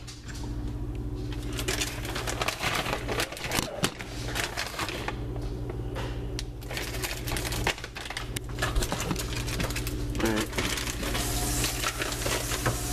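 Rapid clicks, taps and light clatter of things being handled on a kitchen counter, over a steady low hum.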